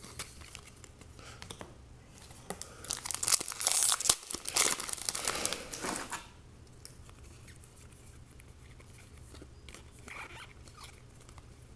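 A foil trading-card pack wrapper being torn open, with crackling and crinkling for a few seconds. Then comes the faint rustle and click of the cards being leafed through by hand.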